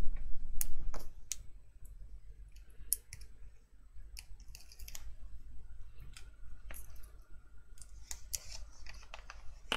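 Red-liner double-sided tape pulled from its roll and pressed along thin cardstock strips, then the taped strips handled and bent, giving scattered sharp clicks, scrapes and rustles of card and tape. It is loudest in the first second.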